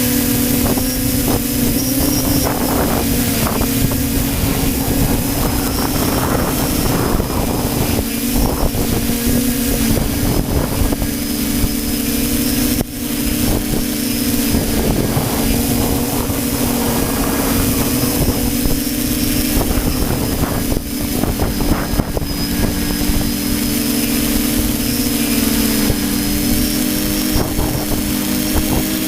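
Radio-controlled model aircraft flying, its motor and propeller giving a steady drone that shifts slightly in pitch as the throttle changes, with gusty wind buffeting the microphone.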